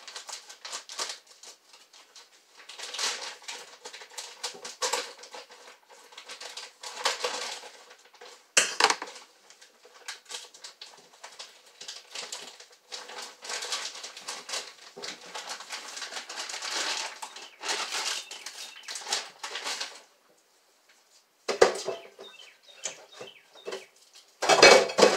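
Plastic bag of chicken thighs rustling and crinkling in uneven bursts as it is opened and handled, with a brief pause and then two sharp knocks near the end.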